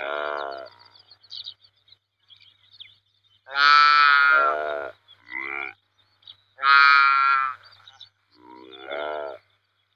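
Saiga antelope calling: a series of about five nasal, pitched calls, each under a second long with short gaps between, the loudest about 4 and 7 seconds in.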